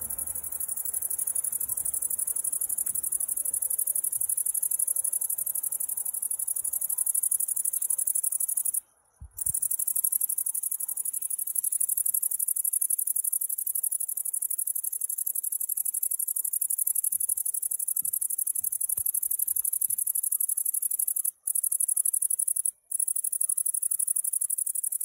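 Bush-cricket singing a continuous high, buzzing trill. It breaks off briefly about nine seconds in and twice near the end.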